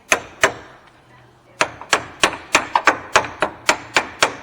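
Hammer blows on steel front-suspension parts of a truck, driving a stuck part over: two strikes at the start, then after a short pause a steady run of rapid blows, about three a second.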